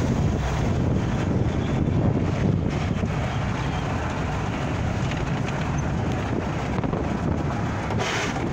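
Dune buggy driving along, its engine running steadily under a rush of wind buffeting the microphone.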